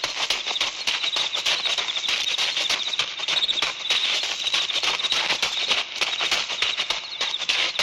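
Dense, rapid crackling over a steady, high, wavering chirring like a chorus of crickets, played from a 1960 vinyl sound-effects LP.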